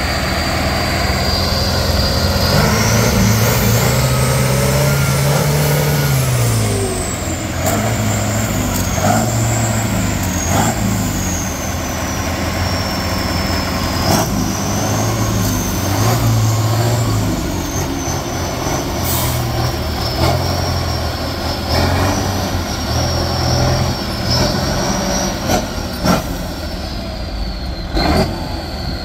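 Off-road truck-trial buggy's engine revving in repeated surges as it drives through and climbs out of a muddy ditch, with a high whine that climbs and then falls away. A few sharp knocks near the end.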